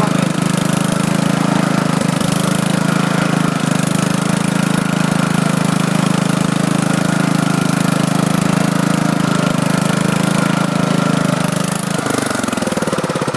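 Riding lawn tractor's engine running steadily under way, then dropping in pitch about twelve seconds in as the engine slows.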